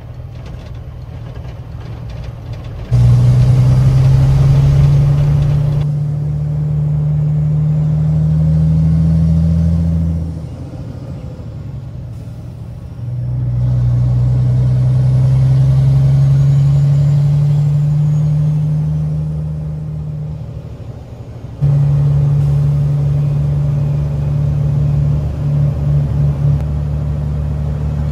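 Semi truck's diesel engine heard from inside the cab, pulling in stretches. It comes on hard about three seconds in and eases off around ten seconds. It pulls again with a slowly rising pitch from about thirteen to twenty seconds, then comes back on strongly near twenty-two seconds.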